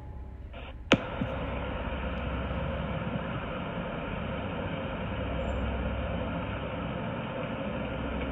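Steady rumble and hiss of outdoor background noise picked up by a doorbell camera's microphone, with a single sharp click about a second in.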